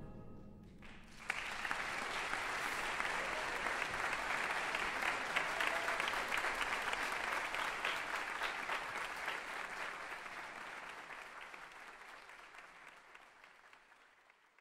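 A concert band's last chord dying away into the hall's echo, then audience applause that starts about a second in, builds, and slowly fades out near the end.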